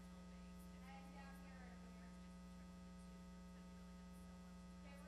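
Near silence under a steady electrical mains hum, with faint distant voices about a second in and again near the end.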